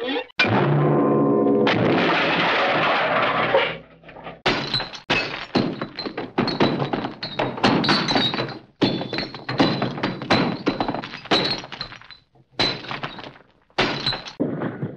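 Hanna-Barbera cartoon crash sound effects. A sharp hit with a short ringing tone comes first, then a steady crash lasting about two seconds, and then a long run of clattering impacts and breaking, with glass or metal ringing through it.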